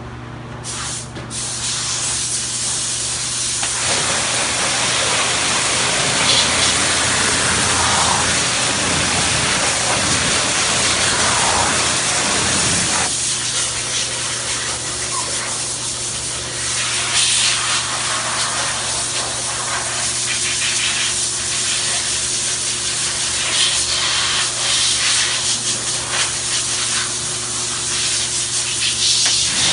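Water spray hissing steadily as it rinses soap off a car's painted body panel, starting about a second in, with a low steady hum underneath.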